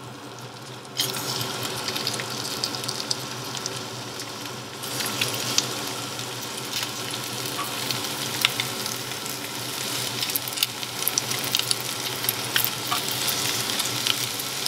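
Chicken breast pieces sizzling and crackling in hot oil in a non-stick frying pan. The sizzle steps up louder about a second in and again near five seconds, as more pieces are laid in.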